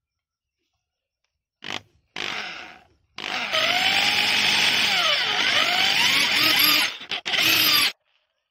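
Electric drill running a twist bit into a wooden cylinder: a short blip of the motor, a brief run that winds down, then a long loud run from about three seconds in whose whine dips and rises in pitch as the bit bites. It cuts out twice briefly near the end, then stops.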